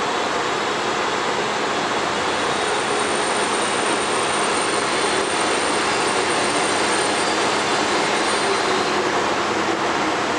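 Amtrak Acela Express electric trainset pulling into the station and slowing, a steady rushing hiss from the train with a thin high whine that fades out near the end.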